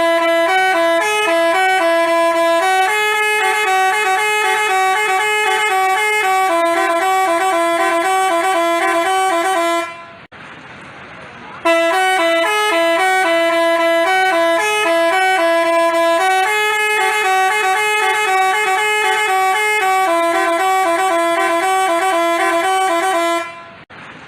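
Telolet multi-tone horn of the basuri type playing a tune in quick stepped notes. The phrase plays twice, each time breaking off into about a second and a half of hiss, around the middle and again near the end.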